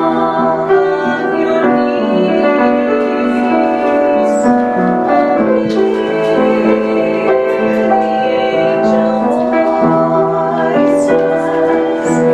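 Background music: a song with voices singing held notes over piano accompaniment.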